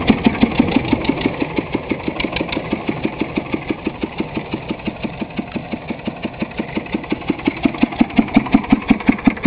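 Small engine of a homemade farm tractor running at a slow chug, with even, distinct exhaust beats about seven a second, growing louder near the end.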